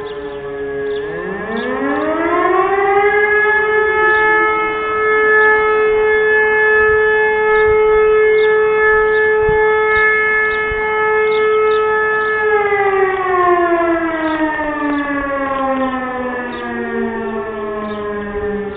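E57 electric motor siren spinning up to a steady, multi-toned wail, holding it for about nine seconds and then winding down with a falling pitch. Several more E57 sirens further off sound at the same time, their tones overlapping, and one starts rising again near the end.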